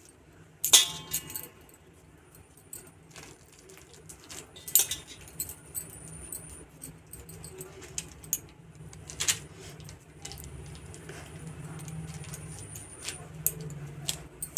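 Thin plastic sheet crinkling and crackling under fingers as small balls of dough are set on it and pressed flat, with sharp crackles about a second in, near five seconds and just after nine seconds. A faint low hum joins from about ten seconds in.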